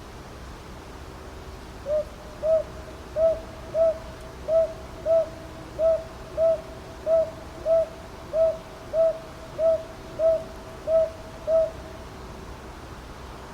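Northern boobook (Ninox japonica) calling: a run of sixteen soft, low hoots, evenly spaced at about one and a half per second and falling into pairs, starting about two seconds in and stopping about two seconds before the end.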